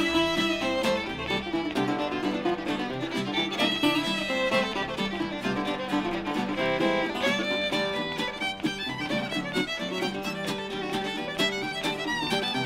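Western swing instrumental: a fiddle bowing the lead line over a National resonator guitar and a strummed acoustic rhythm guitar.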